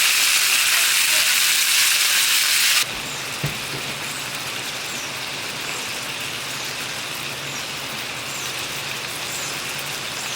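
Heavy rain pouring down as a loud, even hiss, which cuts off abruptly about three seconds in to steadier, lighter rain falling on surfaces. Faint high chirps repeat over the lighter rain, with one soft knock shortly after the change.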